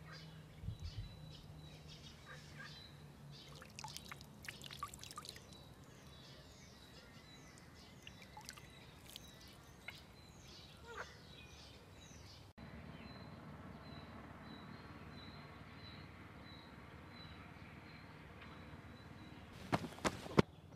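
Outdoor ambience of small birds chirping, with a faint high tone pulsing in even beats. Near the end come a few sharp footsteps.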